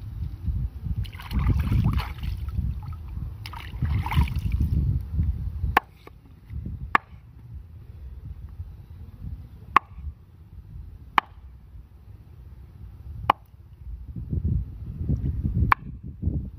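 Water sloshing and splashing as fish are rinsed in shallow water, then a large knife chopping needlefish on a wooden board: about six sharp knocks, a second or two apart.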